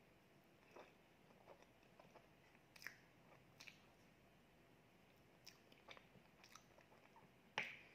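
Faint close-up eating sounds: soft mouth and chewing noises of a spoonful of soft honey cream cheese cake, with scattered light clicks and one sharper click near the end.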